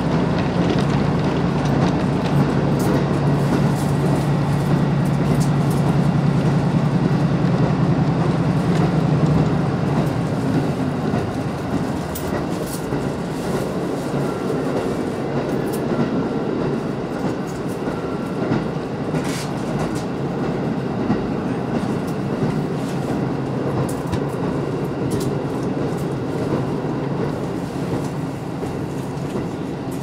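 Inside a KiHa 54 diesel railcar under way: the diesel engine drones under power, then its note falls away about a third of the way in. The car runs on with a steady rumble and clatter of wheels on rails.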